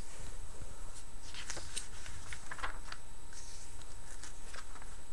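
Glossy magazine page being turned by hand: crisp paper rustling and crackling, busiest about a second to three seconds in, over a steady low hum.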